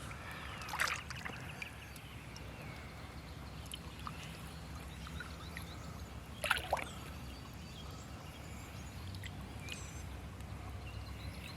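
Gentle water sloshing around a large carp held in the shallows to recover before release, with two brief louder splashes, about a second in and about six and a half seconds in, over faint steady outdoor background noise.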